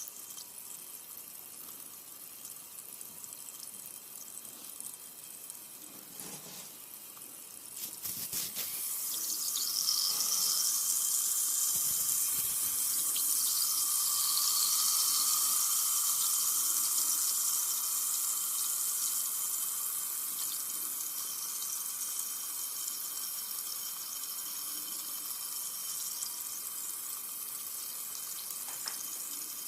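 Carbonated soda fizzing, a steady crackling hiss of bursting bubbles. After a few clicks about eight seconds in, the fizz swells louder and then slowly eases off.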